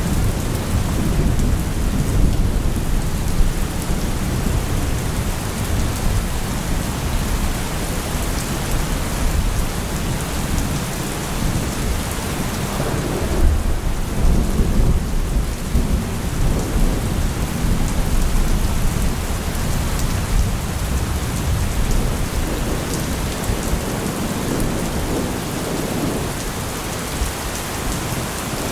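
Steady heavy rain with continuous low rolling thunder rumbling underneath.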